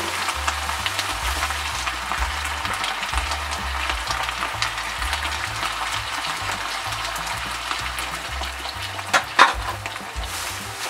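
Cod, vegetables and tomato sauce sizzling in a frying pan, a steady crackling hiss. Two short knocks about nine seconds in.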